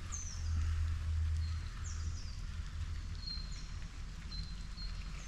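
A bird calling repeatedly with high whistled notes: a few that fall in pitch, then several short level whistles, about one a second, over a steady low rumble.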